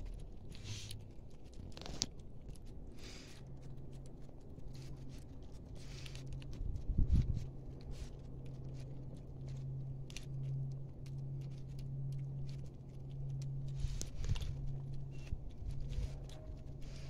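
Kittens eating off a piece of cardboard: scattered small crunches and scrapes, over a low steady hum. A louder bump about seven seconds in.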